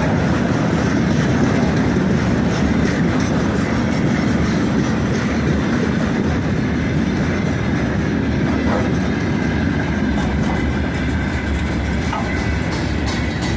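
Freight train of tank wagons rolling past with the steady noise of wheels on the rails.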